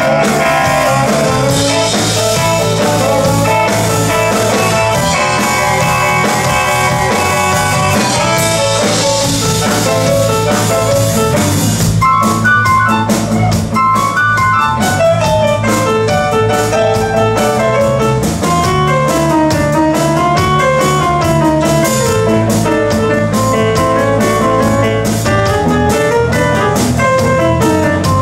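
Live instrumental blues played by a band on electric guitar, drum kit and keyboard. About twelve seconds in the playing changes, with sharper drum hits and a lead line that bends up and down.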